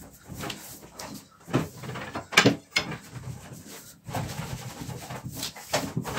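Long thin baklava rolling pin (oklava) with pastry sheet wrapped around it, rolled back and forth under the palms on a tabletop. It makes a low rumble with a string of short knocks and swishes, the sharpest about two and a half seconds in.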